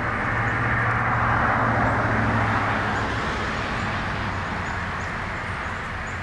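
A car passing on the road, its tyre and engine noise swelling to a peak about a second and a half in and then slowly fading.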